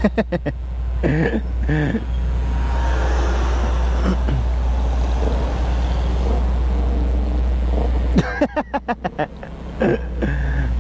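Road vehicle noise over a steady low rumble, with short bits of voices at the start and again near the end. The rumble comes from the poorly connected microphone adapter, which makes the audio noisy.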